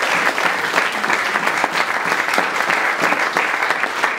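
Audience in a hall applauding: many people clapping at once in a dense, steady patter.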